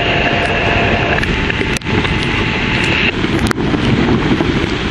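Heavy rain and wind gusting over the microphone in a thunderstorm, a loud steady rush, with two sharp taps about two and three and a half seconds in.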